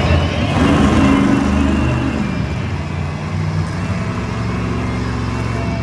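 Monster truck engine running loud and revving, its pitch sweeping up and falling away about a second or two in, then running on more steadily.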